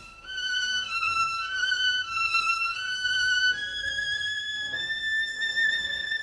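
Solo violin playing a slow, lyrical melody high on the instrument, moving from note to note and settling about four and a half seconds in on one long held note.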